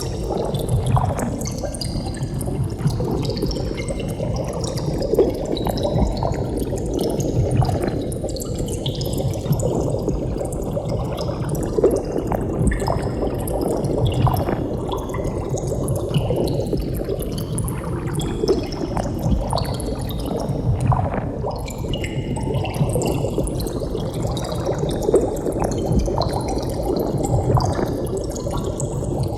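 Water bubbling steadily, with a dense run of small bubble pops and gurgles. The tone of the bubbling slowly sweeps up and down.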